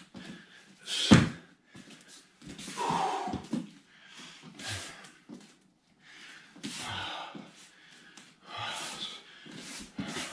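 Bare feet stamping and shuffling on foam floor mats as a man drills shadow grappling entries, with one sharp thump about a second in, followed by irregular short shuffles and sharp breaths every second or two.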